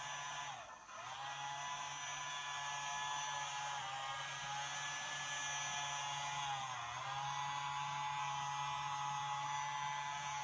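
Small electric pet nail grinder running with a steady high whine. Its pitch sags briefly three times as it is pressed against the dog's nails.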